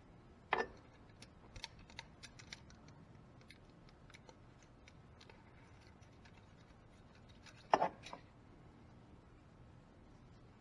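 Faint, scattered metallic clicks and light taps of hand tools working at a GY6 scooter engine's valve rockers, as the valve clearance is rechecked after the adjuster lock nut is tightened. A sharper click comes about half a second in and a louder pair of clicks near eight seconds.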